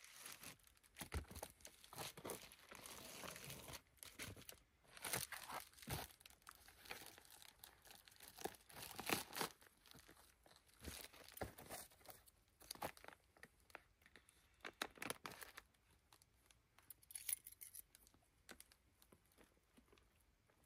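Irregular crinkling and rustling of handled material, dense for about the first sixteen seconds, then sparser and fainter.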